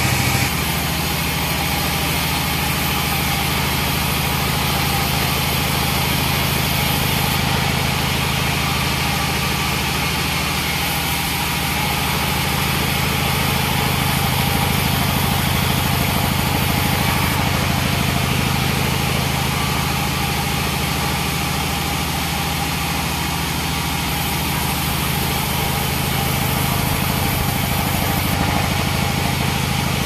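A 42-inch bandsaw mill running steadily as its blade rips a teak plank lengthwise.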